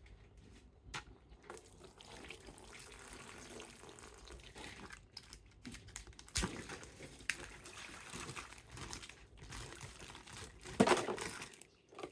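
Handling noises of toys and their packaging: rustling and crinkling with scattered small clicks, and a louder crinkle near the end.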